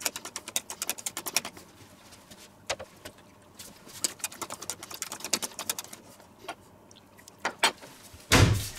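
Wire whisk stirring a thick cream-and-quark mixture in a stainless steel bowl, its wires clicking rapidly against the bowl in two spells. A louder clatter comes near the end.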